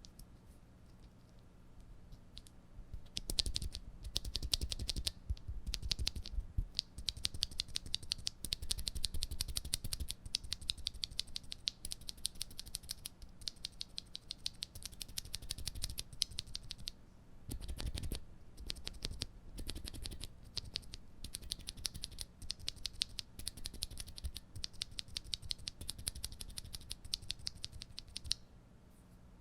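Typing on an NK65 mechanical keyboard with Cherry MX Red linear switches: a few single keystrokes, then fast, continuous runs of clacking keys. A deeper, heavier stroke falls about halfway through, and the typing stops shortly before the end.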